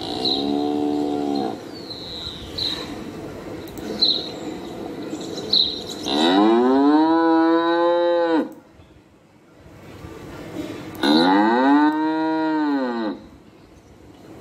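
Cow mooing three times: a short moo, then two long moos a few seconds apart, each rising and then falling in pitch.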